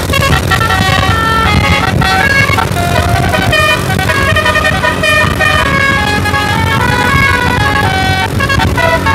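Tour bus's musical air horn ('telolet'), driven by a DAV horn module, playing a fast tune of short stepped notes that change several times a second, with a steady low rumble underneath.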